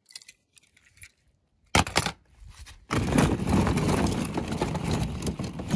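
Hollow plastic ball-pit balls clattering and rustling against each other as a hand digs through a bin full of them. A few light clicks and a couple of sharp knocks come first, and the steady clatter starts about three seconds in.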